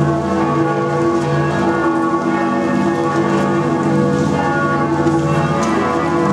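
Several large church bells of the Bern Minster ringing together, their deep and higher tones overlapping in a continuous swinging peal that rings in the New Year.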